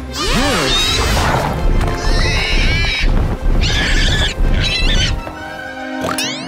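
Cartoon wild boar sound effects: animal calls that swoop up and down, over background music. A low rumble runs under them until about five seconds in, and a quick rising slide comes near the end.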